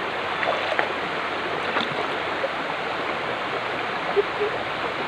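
Shallow stream of running water flowing and rushing steadily over stones, with a few faint small splashes.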